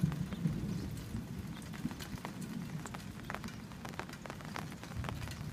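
Steady rain falling, with many single drops ticking sharply on the fabric canopy of an open umbrella overhead.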